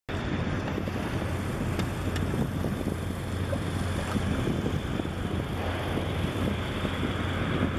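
Steady wind noise buffeting the microphone, with a constant low rumble underneath.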